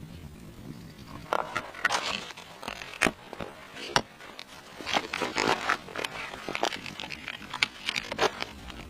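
Irregular handling noises: rustling and scraping with several sharp clicks, starting about a second in.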